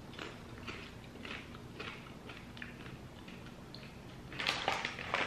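Popcorn being chewed, with soft crunches about twice a second. Near the end a louder burst of crinkling comes as a hand digs into the plastic snack bag.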